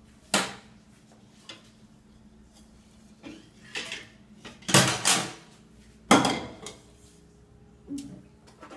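Ceramic bowls, cups and metal spoons clattering against each other and the stainless steel sink as dishes are moved during washing-up. A few separate knocks, the loudest a pair about five seconds in and another just after six seconds.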